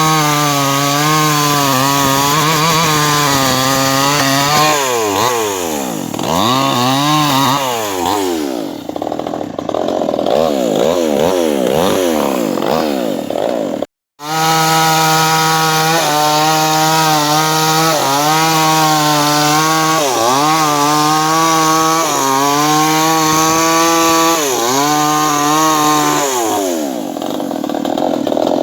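Chainsaw running at high revs while cutting a wooden beam, its engine note wavering under load. Several quick drops and rises in revs come a few seconds in, the sound cuts out for an instant about halfway, and the revs fall away near the end.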